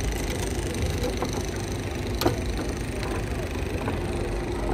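Foosball game in play: plastic player figures knocking the ball and rods clacking in scattered sharp clicks, the loudest a single crack about two seconds in, over steady background noise.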